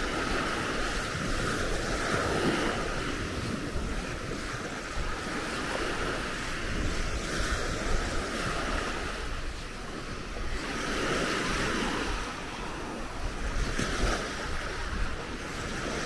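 Waves washing onto a beach, the surf swelling and easing every few seconds, with wind noise on the microphone.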